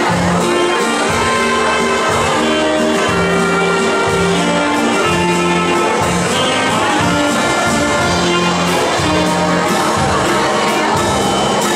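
Loud dance music with a steady, repeating bass line under held chords.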